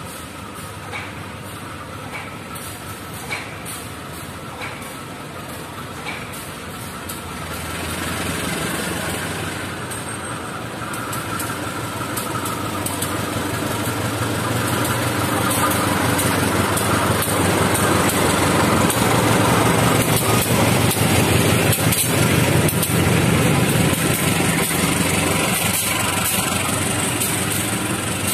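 Diesel-electric locomotive's engine running as it hauls a passenger train close past, growing louder about eight seconds in and loudest in the second half, with the rumble of the coaches' wheels on the rails.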